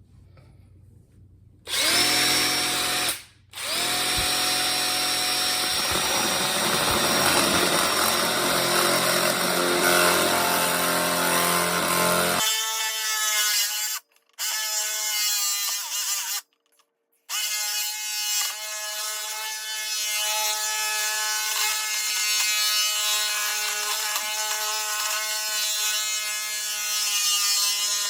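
Power drill boring into the metal of a jammed vending-machine lock to drill it out. The drill starts about two seconds in, stops briefly and starts again, then runs steadily. About halfway through the tone changes and there are two short breaks.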